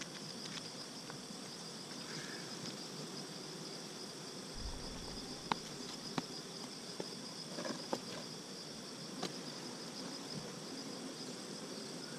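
Steady high-pitched chirring of crickets, with the hum of honey bees over an open hive beneath it. A few light clicks and taps of hive handling come through the middle of the stretch.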